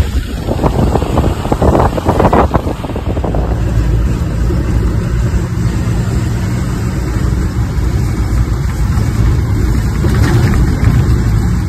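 Tata 4830 BS6 16-wheel truck's diesel engine running steadily while driving, heard from inside the cab as a low hum. Irregular knocks and rustling in the first few seconds.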